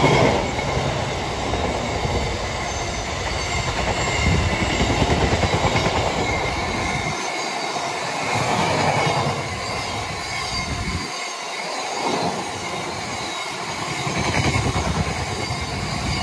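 Freight train of oil tank wagons rolling past at speed: a steady rush and rumble of wheels on the rails, with a thin high wheel squeal over it. The low rumble drops away briefly twice, at about seven and eleven seconds in.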